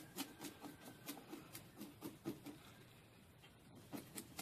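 Spoon scraping the scales off a crappie against the grain, in quick short strokes about four a second, with a pause of about a second before the strokes resume near the end.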